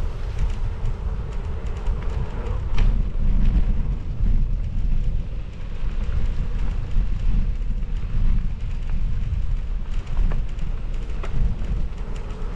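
Wind buffeting the microphone as a mountain bike rolls along a dirt trail, a constant low rumble with a few sharp clicks and rattles from the bike.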